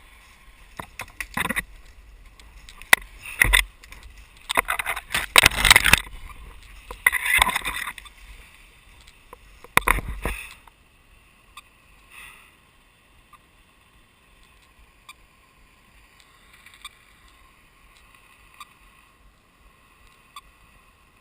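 Rustling and brushing of dense forest undergrowth and footsteps as a person pushes through it, in loud irregular bursts. After about ten seconds the movement stops and only a faint background remains.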